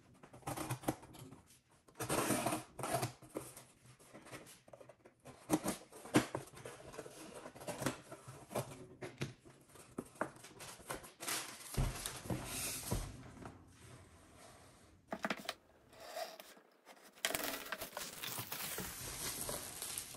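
Box cutter slitting packing tape on a cardboard shipping box, then cardboard flaps scraping and knocking as the box is opened and emptied. Plastic wrapping rustles near the end.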